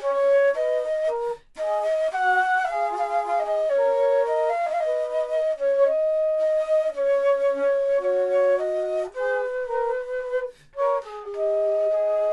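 Duet of two 3D-printed baroque flutes (traversos): two melodic lines played together in harmony, sounding in tune, with two brief pauses where both players stop at once.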